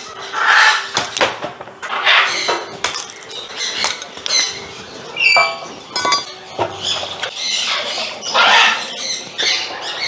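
Aviary parrots screeching and squawking in repeated harsh calls, loudest about half a second in, at about two, five and eight and a half seconds. A few sharp clicks come in between.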